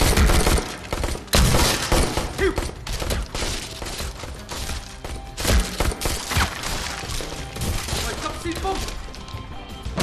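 Rapid handgun fire in volleys, heaviest in the first two seconds and again about halfway through, over dramatic film score music.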